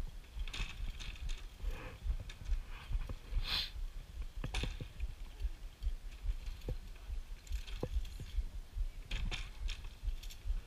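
Scattered light metal clinks and rattles of climbing-harness carabiners and lanyard clips, with a louder rustling burst about three and a half seconds in. A constant low rumble of wind buffets the microphone underneath.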